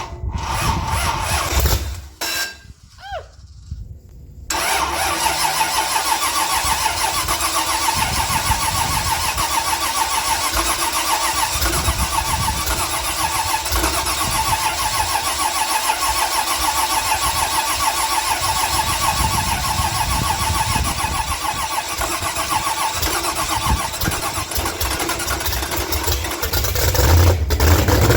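Ford 351 Windsor V8 with a TFS Stage 1 roller cam, on a test stand, being cranked and fired. It stumbles for the first few seconds, catches about four and a half seconds in, and runs steadily. Near the end it grows louder.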